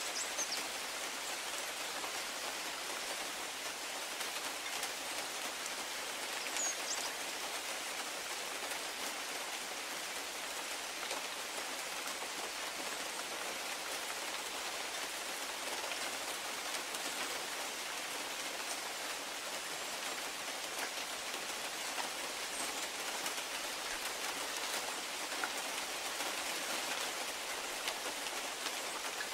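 Steady rain falling on a conifer and a grass lawn, an even hiss of many small drops.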